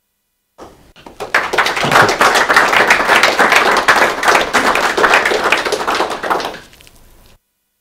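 Audience applauding: many hands clapping, building up about a second in, holding for several seconds, then fading out and stopping near the end.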